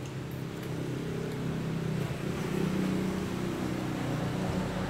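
Steady low machine hum, with a slight shift in pitch about two seconds in.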